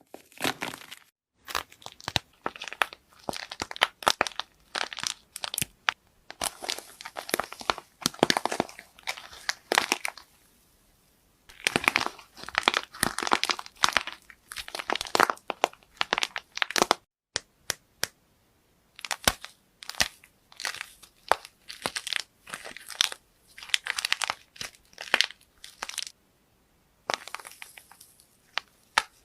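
Slime being squeezed, stretched and poked by hand, giving bursts of crackling, clicking air-bubble pops. The bursts come in runs broken by a few short silences.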